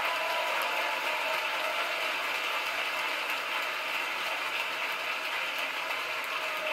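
Onboard microphone audio from Falcon Heavy's engines firing in flight: a steady, dense crackling rush.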